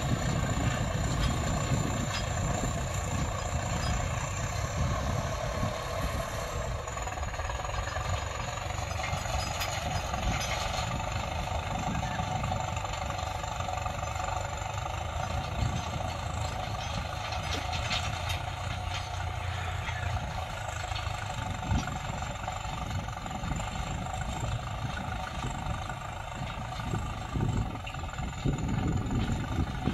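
Tractor engine running steadily under work.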